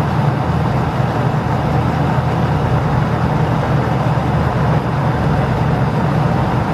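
Compact Kenmore stacked washer running again after a pause in its cycle: the motor hums steadily as the drum spins and the machine drains, with a constant rushing, rattling noise over the hum.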